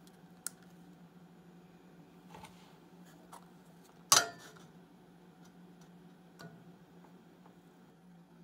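A digital angle gauge being handled and set against a steel table saw blade: a few light clicks and one sharp clack about four seconds in, over a low steady hum. This is the blade's tilt being checked for square.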